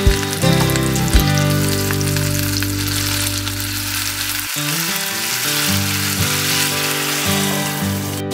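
Crab, ginger and scallion sizzling in a hot enamelled cast-iron braiser, the sizzle growing stronger from about four seconds in as Chinese cooking wine is poured over the crab. There are a couple of knocks near the start as the crab shell is set against the pot.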